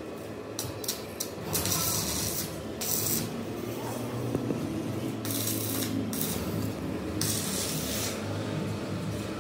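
A small machine running steadily with a low hum, broken by several short bursts of hissing.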